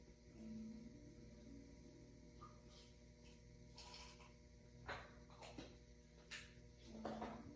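Near silence: room tone with a steady faint hum and a few faint clicks of handling.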